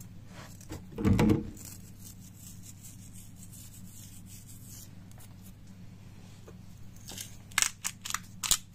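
Raw beef cubes being seasoned with salt and pepper by hand: a soft rub and knock about a second in over a low steady hum, then a quick run of sharp clicks near the end.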